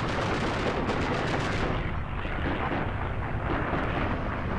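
Rapid, continuous automatic gunfire: a dense run of fast shots without a break.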